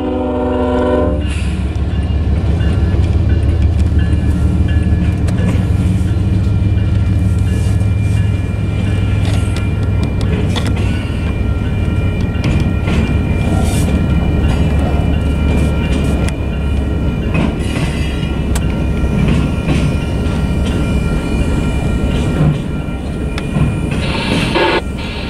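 Union Pacific diesel locomotive rumbling past, followed by a long string of loaded flatcars, the wheels clicking over the rail joints. About the first second is the tail end of a piece of music.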